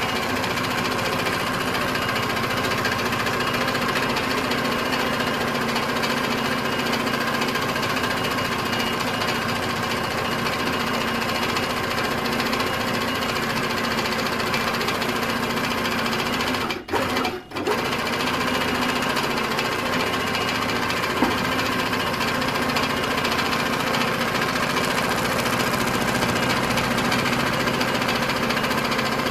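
Tiara sewing machine running steadily at speed, its needle stitching continuously in free-motion embroidery through painted fabric, with two very brief breaks about halfway through.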